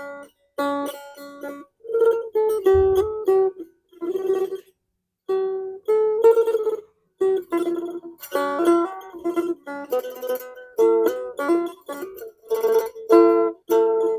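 Phin, the Thai Isan plucked lute, played solo: quick runs of plucked notes over a repeated drone-like pitch, in short phrases with brief pauses between them.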